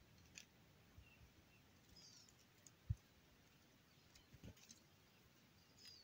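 Near silence, with a few faint, short high bird chirps and a couple of soft low thumps.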